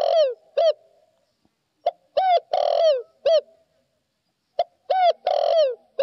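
Spotted dove cooing: its multi-note coo phrase, a short note, two hooked notes, a longer held note and a falling final note, repeated about every two and a half seconds.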